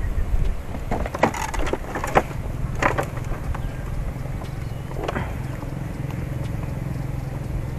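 Rustling and a few sharp clicks as hands work steel pliers on a frog lure over a plastic sack, with a steady low rumble underneath.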